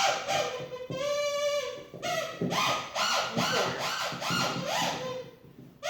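Small blow-into squeaky toy bird sounding a string of short squeaks, each rising at the start, about two or three a second, with one longer held note about a second in.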